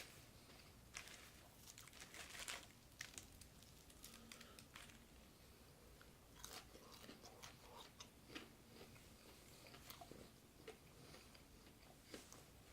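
A person eating, faintly: chewing with scattered crisp crunches and mouth clicks.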